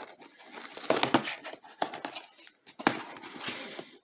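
Small scissors snipping and prying at a parcel's packaging, with irregular clicks, scrapes and crinkling.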